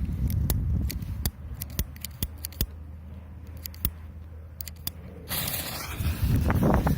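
Scattered sharp clicks for about five seconds, then a firework fuse starts hissing about five seconds in, with a louder low rumble near the end as the mortar charge is about to fire.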